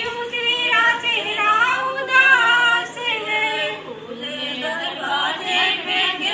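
A group of women singing together without instruments, a folk-style devotional song carried by several voices at once.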